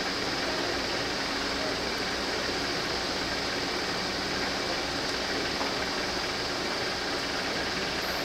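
Shinano Railway 115-series electric train approaching in the distance: a steady rumble and hiss at an even level, with no single event standing out.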